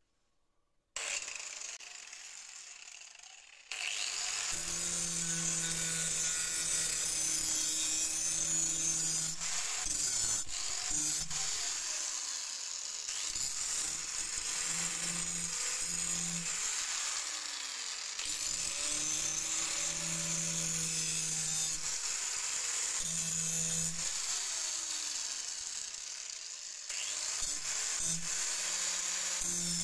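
Angle grinder running and grinding against a steel spade blade, starting about four seconds in. A steady whine with a high grinding hiss; the pitch dips and recovers several times.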